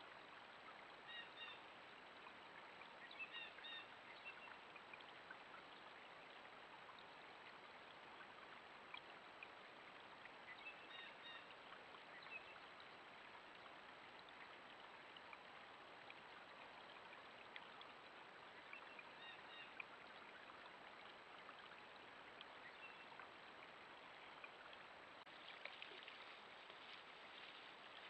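Near silence: faint steady hiss from a trail camera's microphone, with a few scattered clusters of short, quick bird calls and a little faint crackling near the end.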